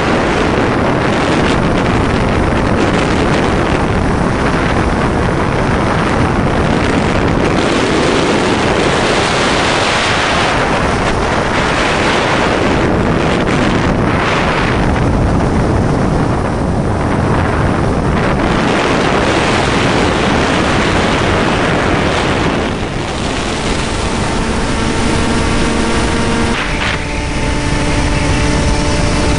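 Wind rushing over the microphone of a camera carried on a Ranger EX radio-controlled plane in flight. In the last several seconds the steady whine of the plane's electric motor and propeller comes through, stepping up in pitch near the end.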